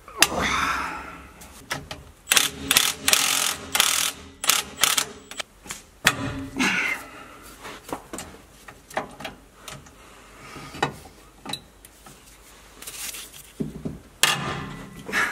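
Hand socket ratchet on the 12-point bolts of a driveshaft-to-differential flange: bursts of rapid ratchet clicking and metal clinks that stop and start.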